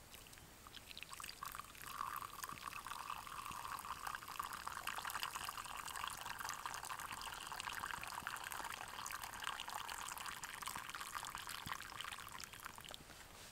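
A thin stream of dark hot liquid is poured from a small stainless steel pot into a wooden kuksa cup. The pour starts about a second in, runs steadily, and tapers off near the end.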